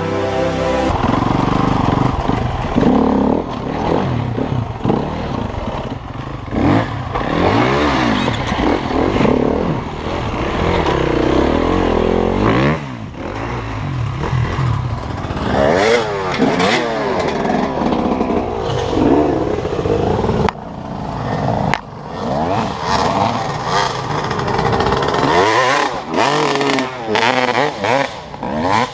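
Several enduro dirt bike engines revving hard in repeated bursts, pitch rising and falling, as they climb over logs under load, with some clattering knocks.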